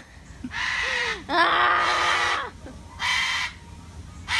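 White cockatoo screeching: three harsh, loud calls in a row, the second the longest.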